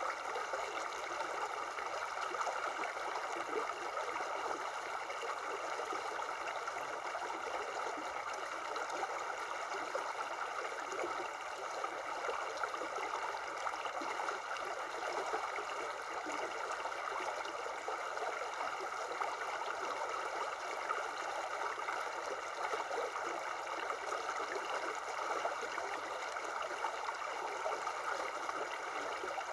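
Shallow river running over stones in a steady, even babble.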